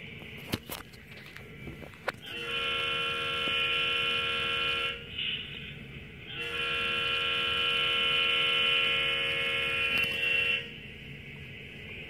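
HO scale model locomotive's horn sounding two long, steady blasts: the first about two and a half seconds, the second about four seconds. A few small clicks come before them.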